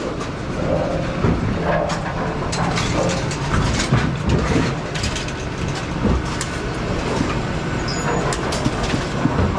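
Brunswick bowling pinsetter running through its cycle: a steady mechanical clatter with frequent clicks and knocks. It is being tested after a repair and is cycling past the point where it should stop.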